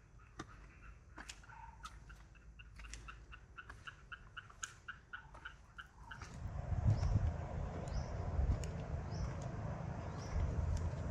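Outdoor ambience with birds calling: first a fast, even run of short notes, about four a second. About six seconds in, the sound shifts to a low rumble, with a high, falling chirp repeating roughly once a second.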